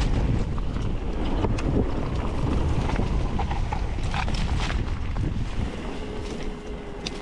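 Wind buffeting the microphone of a camera carried on a moving mountain bike: a heavy, unsteady low rumble with scattered clicks. It eases off near the end.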